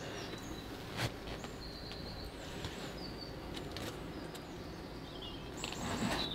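Small birds chirping and whistling short high notes over a steady outdoor background hiss. There is a sharp tap about a second in and a short noisy scuffle near the end.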